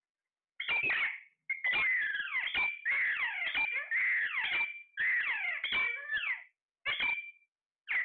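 Alexandrine parakeets calling: a rapid run of shrill whistles and screeches that glide up and down in pitch. The calls start about half a second in and come in bursts with short breaks, thinning to a few separate calls near the end.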